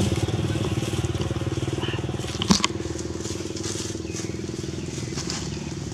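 A small engine idling steadily, with one sharp click about two and a half seconds in.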